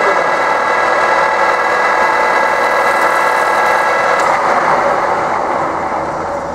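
Metal lathe running with its chuck spinning: a loud, steady mechanical whine made of several even tones. About four seconds in, the higher tones stop and the sound changes.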